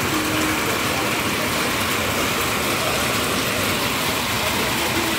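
Hail and heavy rain pelting roofs, trees and pavement: a steady, dense hiss with faint scattered ticks.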